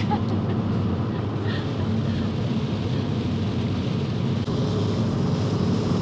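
Steady road and engine noise inside a moving car's cabin, driving in heavy rain on a wet road: an even low rumble with a hiss above it. A faint steady hum joins about four and a half seconds in.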